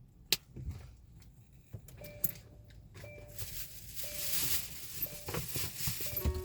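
A short electronic chime repeating about once a second, typical of a car's warning chime, with a few sharp clicks mixed in.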